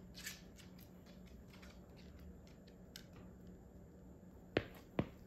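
Scattered faint ticks, then two sharp thuds about half a second apart near the end: footsteps of rubber-soled Adidas Samba sneakers on a hardwood floor.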